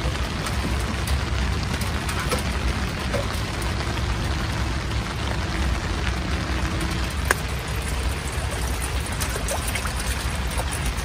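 Steady rain on the tent fabric, with a single sharp knock about seven seconds in. Near the end, water is poured from a plastic bottle into a pot.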